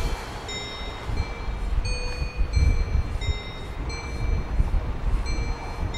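Wind buffeting the microphone in low, uneven gusts, under a light melody of short, clear, chime-like high notes, about two a second.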